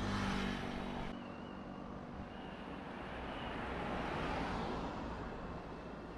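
Road traffic: a low engine hum at the start, then a passing van whose tyre and engine noise swells to a peak about four seconds in and fades away.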